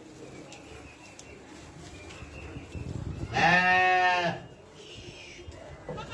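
A single long livestock bleat, about a second long, a little past halfway through.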